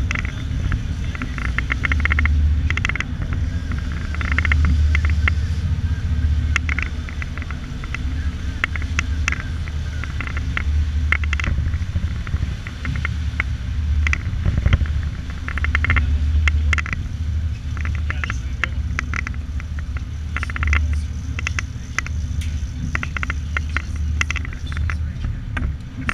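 Engine running with a steady low drone, overlaid by irregular bursts of higher crackle and clatter that come and go.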